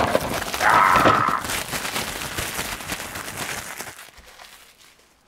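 Cellophane shrink wrap being torn and pulled off a cardboard model-kit box, a dense crinkling and crackling that dies away about four seconds in.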